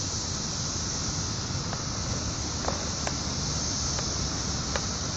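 A chorus of periodical cicadas (17-year Brood XIII) as a steady high-pitched drone, over a low rumble on the microphone, with a few faint ticks.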